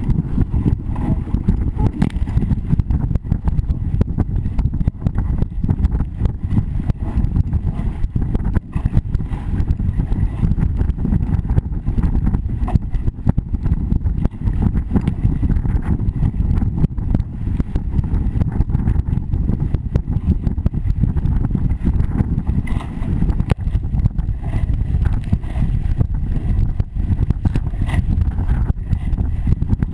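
Wind buffeting the microphone of a camera on a dinghy sailing fast through chop, heard as a loud, steady low rumble with a rapid fluttering unevenness, mixed with the rush of water along the hull.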